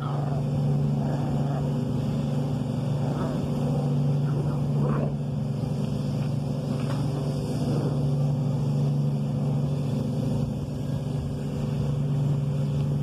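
A steady low engine or motor hum, even in pitch, with a few faint short squeals over it around the middle that fit the puppies.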